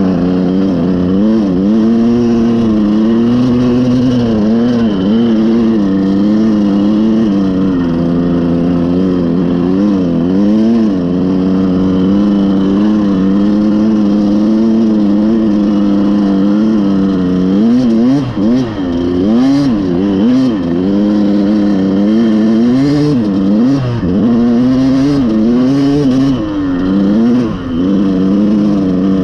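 Dirt bike engine running hard while being ridden, its pitch rising and falling steadily with the throttle. The engine briefly drops off a few times in the second half.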